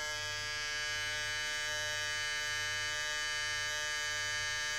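Kemei 1123 electric foil shaver running at full speed, a steady buzz at about 9,000 RPM.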